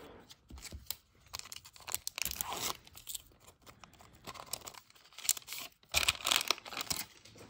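Silver foil wax pack of 1992-93 Upper Deck hockey cards crinkling in the hands and tearing open down its side, in a series of short rustling bursts that are loudest near the end.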